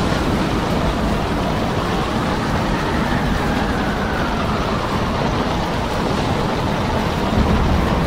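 Storm wind buffeting the microphone over heavy seas: a dense, steady rushing rumble. A faint whistle falls in pitch about three seconds in.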